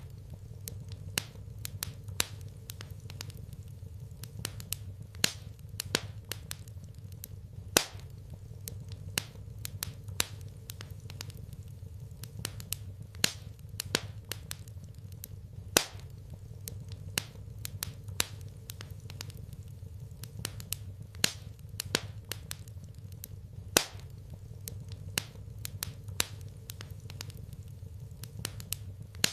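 Wood fire burning in a fireplace, crackling with irregular sharp pops, a few much louder than the rest, over a steady low rumble.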